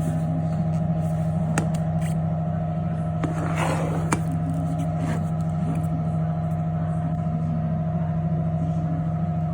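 Toyota bB engine idling steadily with a low, even hum, while it still sits on a worn, sagging engine mount that lets the vibration reach the body. A few light clicks and a brief scraping rustle come about three and a half seconds in.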